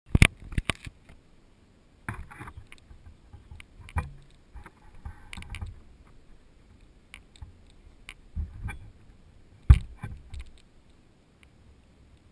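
Handling noise from an action camera being set in place: irregular knocks, taps and brief rustles. The loudest knocks come at the very start and about ten seconds in.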